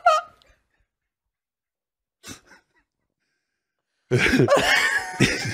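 A man laughing in short bursts, cut off into dead silence for about four seconds, then laughing and coughing loudly again near the end.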